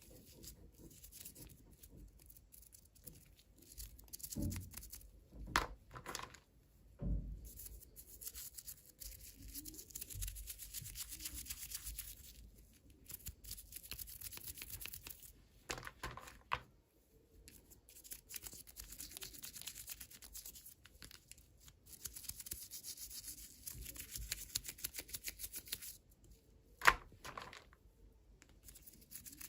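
Hands opening toy packaging: plastic wrapping crinkling and tearing in stretches, with scattered small clicks and a few sharper taps.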